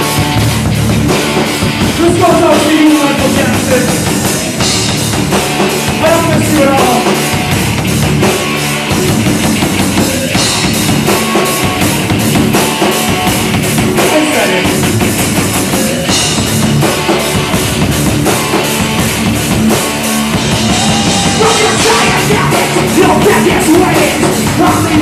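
Live heavy rock band playing an instrumental passage: electric guitars over a pounding drum kit.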